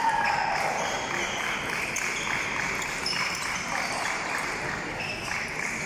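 Table tennis balls clicking off bats and tables, an irregular run of sharp pings from several rallies going on at once across the hall.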